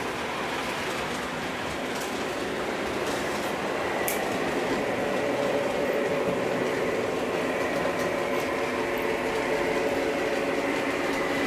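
Lionel model train running on its track: a steady rumble of wheels on rail with a motor hum, growing a little louder about halfway through.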